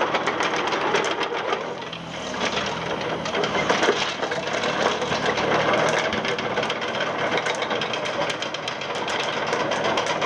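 Yanmar ViO20-3 mini excavator travelling on its tracks: its diesel engine running under a fast, dense rattle and clatter from the track undercarriage.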